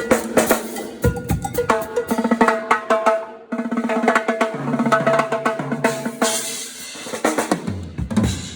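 A live band playing at a sound check: a drum kit with snare and bass drum hits over bass and other pitched instruments, with a low held bass note midway.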